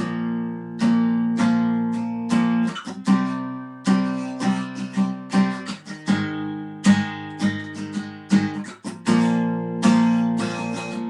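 Acoustic guitar strumming chords, starting suddenly: the instrumental introduction to a song, before the singing comes in.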